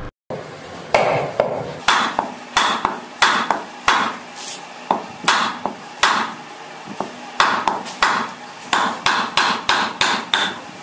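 A piece of wood repeatedly striking a cooler motor's rotor to knock its steel shaft out through a drilled wooden block, about two knocks a second and quickening a little near the end.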